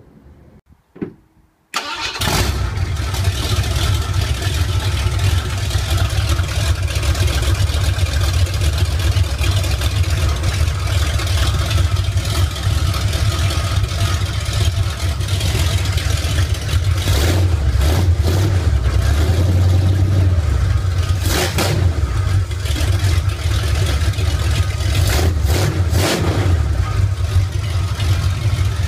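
Ford V8 with a Holley four-barrel carburetor starts running abruptly about two seconds in, most likely through open headers, and carries on with a steady, deep, loud note. A few short, sharper surges come in the second half.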